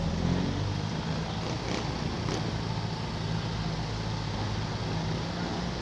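Motorcycle engine running at a steady cruising speed, with wind noise over the microphone.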